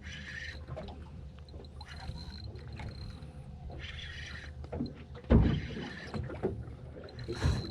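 Boat motor running with a steady low hum while water splashes against the hull every second or so. Two heavy low thumps come about two-thirds of the way through and again near the end.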